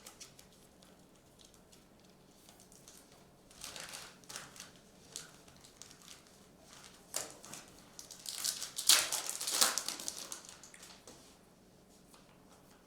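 Crinkling and tearing of a foil trading-card pack wrapper as cards are handled, in several short bursts, the longest and loudest a little past the middle.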